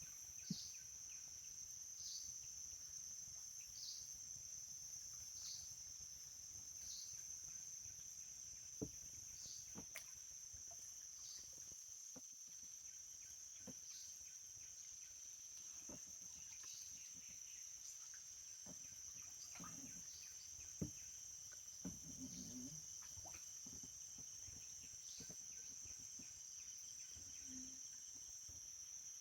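Steady, high-pitched insect chorus of crickets, with a short falling call repeating about every one and a half seconds and a few faint clicks and knocks.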